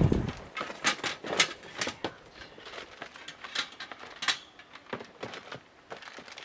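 Scattered short clicks and knocks of things being handled, coming thickest in the first couple of seconds and then thinning out.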